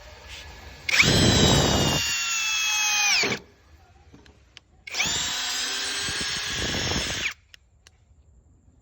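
Brushless cordless drill run twice, each time for about two seconds. The motor's high whine comes up to speed, its pitch sags a little while running, and it drops away when the trigger is released.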